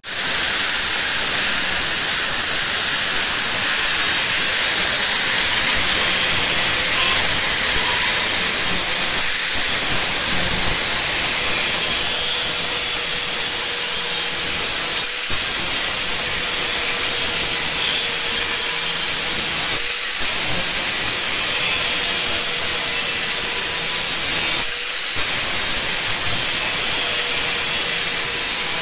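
Angle grinder running with its disc grinding the edge of a steel knife blank cut from a chainsaw guide bar: a steady high whine over a harsh grinding hiss, with a few brief dips as the disc eases off the steel.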